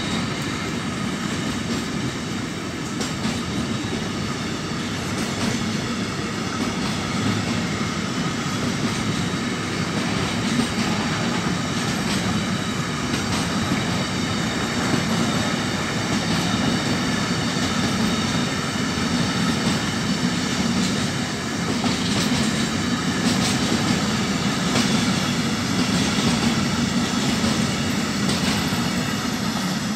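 Loaded intermodal freight wagons carrying containers and swap bodies rolling past in a steady rumble, with wheels clicking rapidly over the rails. A thin, steady wheel squeal sits above the rumble.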